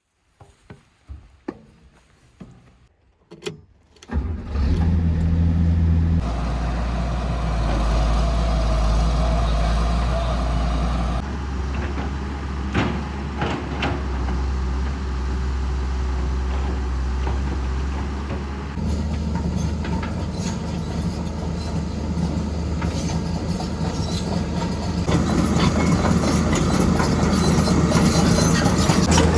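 A few faint clicks, then an engine starts about four seconds in and runs steadily, with a strong low hum.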